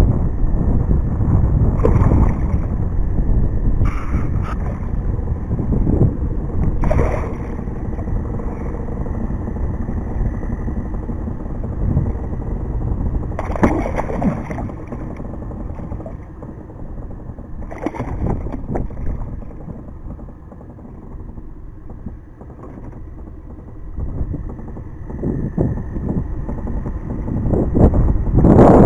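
A hooked smallmouth bass splashing and thrashing at the water's surface beside a boat, in several short bursts over a steady low rumble. The loudest splashing comes near the end.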